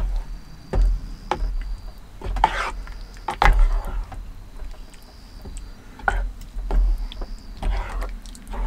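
A wooden spoon stirring thick curry stew in a mess tin: irregular knocks of the spoon against the metal tin, with a few longer wet scraping swishes as the stew is turned over.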